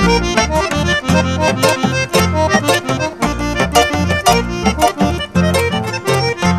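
Instrumental passage of a Paraguayan polka: an accordion melody over strummed guitars and a bass line, at a quick, steady beat.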